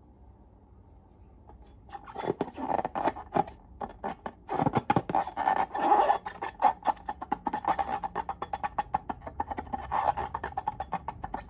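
Slime being squeezed and worked by hand, a dense run of rapid sticky clicks and pops starting about two seconds in.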